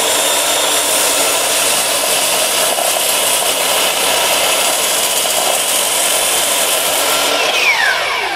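Makita sliding mitre saw running and cutting through a thick block of oak, a loud, steady whine with a cutting hiss. Near the end the motor is switched off and its pitch falls as the blade spins down.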